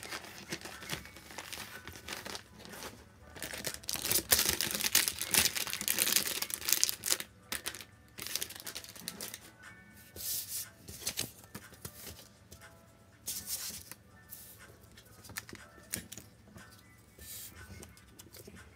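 Paper and sticker sheets being handled: rustling and crinkling, loudest a few seconds in and then quieter, with soft background music underneath.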